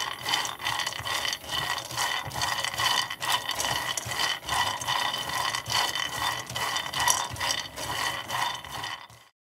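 Raw peanuts being stirred with a silicone spatula as they dry-roast in a nonstick pan: a steady rattle and scrape of nuts tumbling against the pan, with many sharp clicks. It cuts off suddenly near the end.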